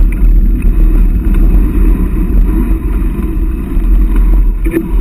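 Wind rumbling and buffeting on an action camera's microphone while riding a mountain bike along a dirt track, loud and steady throughout.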